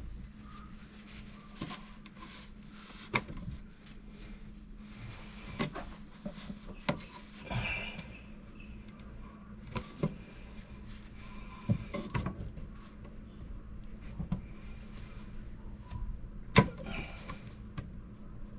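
Scattered clicks and knocks of hand tools and fittings being handled during plumbing work, the loudest a sharp knock about 16 and a half seconds in, over a low steady hum.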